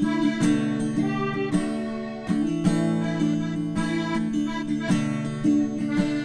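Instrumental background music: plucked strings sounding notes at a steady beat.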